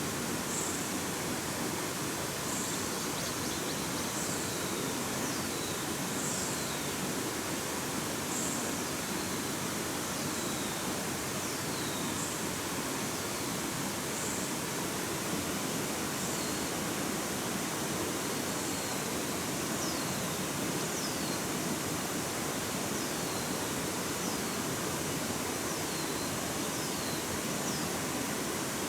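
Steady rushing of a stream, with short high chirps that fall in pitch, repeating every second or two.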